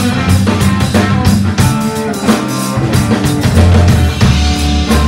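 Live rock band playing: drum kit keeping a steady beat under electric bass and electric guitar. The deep bass drops out briefly a little before the middle.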